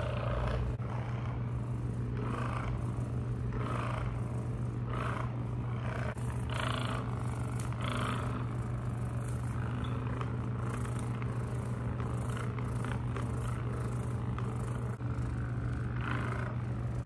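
Handheld percussion massage gun running with a steady low buzzing hum while it is pressed against the leg. A brighter rasp comes and goes about once a second as the head is pressed in and moved along the muscle.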